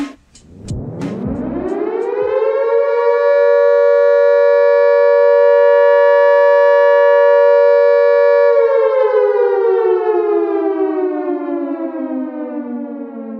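Outdoor civil-defence warning siren winding up over about two seconds to a steady two-note wail. Past the middle it slowly winds down, falling in pitch and fading.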